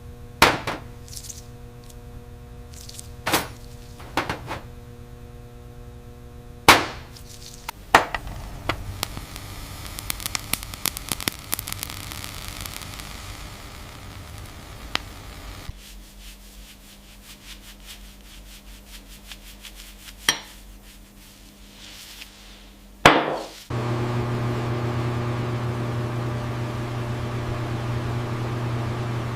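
Several separate sharp knocks of hard objects, a quick run of small clicks in the middle, then a steady rubbing noise with a low hum that starts about three quarters of the way through and keeps going.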